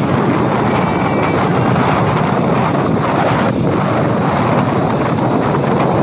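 Wind blowing across the microphone: a loud, steady rushing noise that covers the sound of the surf and the beach crowd.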